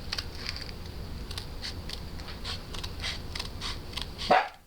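A run of short, irregular scratchy strokes, several a second, of skateboard grip tape being cut, over a low hum. A brief loud sound breaks in near the end.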